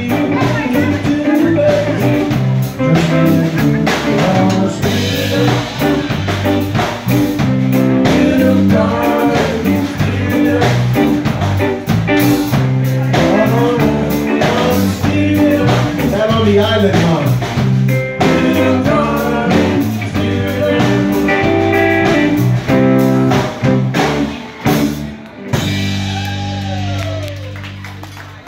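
Live band playing with electric guitar, electric bass, drum kit and a singing voice. Near the end the song closes on a held chord that rings and fades.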